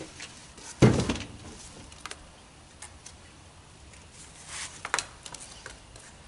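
Handling noises as a new small engine is unpacked: a thump with rustling about a second in, then scattered light clicks and a short rustle near the end.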